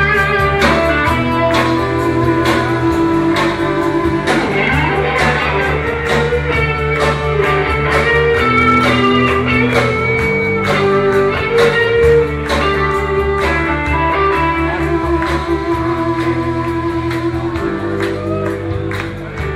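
Live rock band playing a guitar-led passage: electric guitars over a bass line with a steady beat, recorded from within the audience. The music gets a little quieter near the end.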